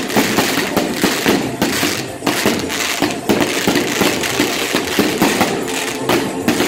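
Fireworks going off at close range: a dense, unbroken crackling and popping of many small charges in quick succession, over a steady hiss of burning spark fountains.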